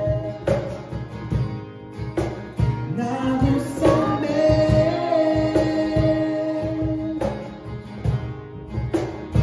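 Male and female voices singing a Japanese worship song together, holding a long note on the word 'nagusame' (comfort), over two strummed acoustic guitars and a steady low beat.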